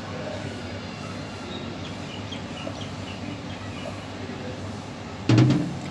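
Steady low room hum with a few faint bird chirps, then a single short loud knock near the end.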